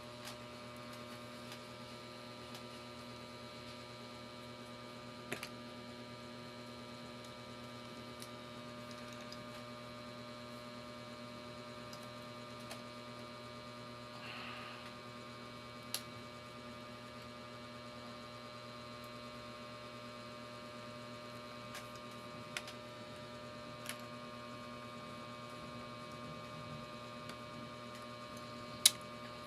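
Steady electrical hum made of several held tones. A handful of sharp clicks from the laptop being taken apart sound over it, the loudest near the end.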